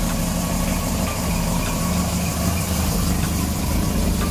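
1979 Volvo 244's engine idling steadily at about 900 rpm, on a car with an exhaust leak.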